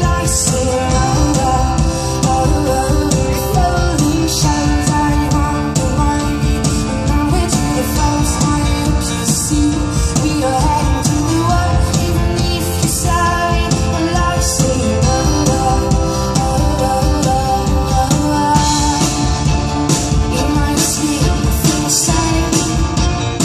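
A live band playing an indie pop-rock song: piano and a drum kit with frequent cymbal strokes, with a woman singing.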